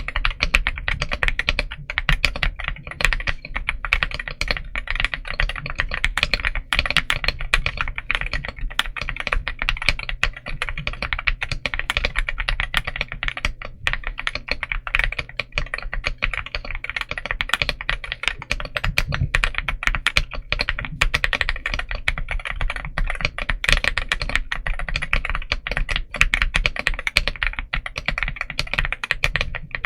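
Typing sound test on a Monsgeek M1V5 aluminum 75% mechanical keyboard: fast, continuous keystrokes with no pause.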